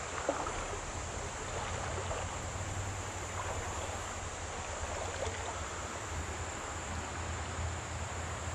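Creek water flowing steadily, with a low wind rumble on the microphone.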